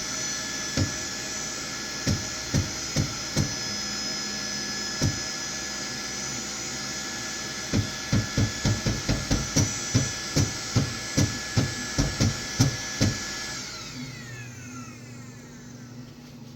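Creality K1 Max 3D printer during its auto-level self test: a steady whirr of its fans with sharp knocks as the nozzle probes the bed, a few spaced out, then a quick run of about two a second. About 14 s in the fan tones glide down and the whirr fades.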